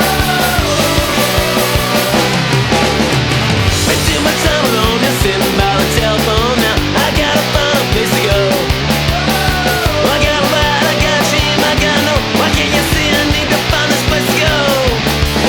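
Loud punk rock music with a steady beat and lead guitar lines.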